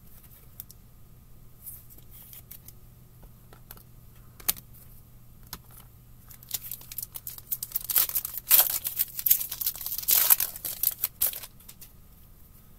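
Foil wrapper of a hockey card pack being torn open and crinkled by hand. It starts about halfway through and runs for some five seconds of crackling, after a few light clicks of cards being handled.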